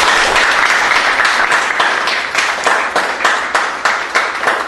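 A small audience applauding by hand, dense at first and thinning to scattered separate claps near the end.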